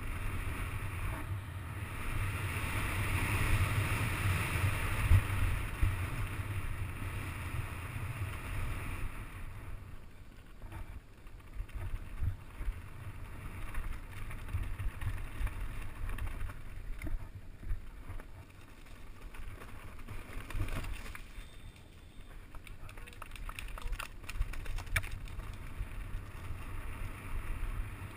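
Wind buffeting an action camera's microphone over the rumble and rattle of a mountain bike descending a rough dirt trail, loudest in the first several seconds, with scattered clicks and knocks from the bike later on.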